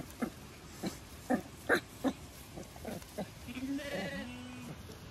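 A Zwartbles lamb bleats once a little past halfway, a wavering call lasting about a second. Before it comes an irregular run of short, sharp sounds.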